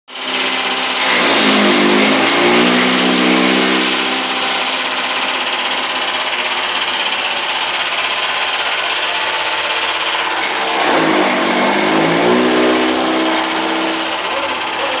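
Belt-driven chaff cutter with a 3 hp electric motor running, a loud, steady whirring machine noise. Twice, about a second in and again near eleven seconds, its hum dips in pitch and climbs back.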